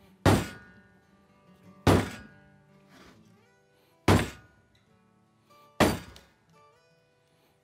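A heavy wooden joiner's mallet of green, still-wet wood striking the back of a hatchet's head, driving the blade into a block of wood to split it: a loud, sharp thunk about every two seconds.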